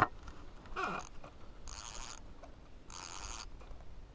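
A waterlogged toy boat being handled, with two short bursts of scraping, rattling noise about a second apart.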